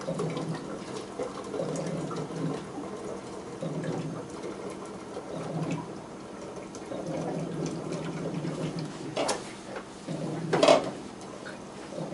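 Hot water running from a bottled-water cooler's tap into a small metal kettle, with two short clanks near the end.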